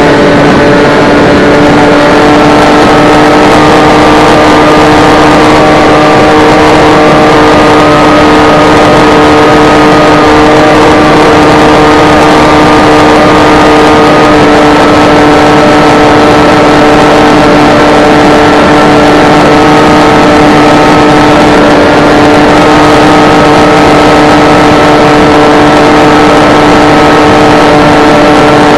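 Electric motor and propeller of an S800 FPV flying wing heard from its onboard camera in cruising flight: a loud, steady drone with a constant hum and a higher whine that wavers slightly in pitch, over a rush of wind noise.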